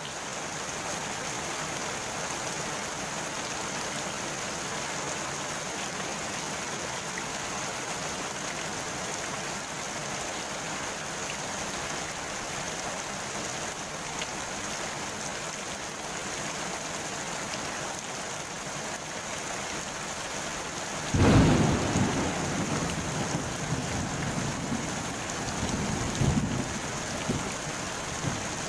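Steady rain pattering on a pond's surface. About three quarters of the way through, a low rumble of thunder breaks in suddenly, the loudest sound, then fades with a second swell near the end.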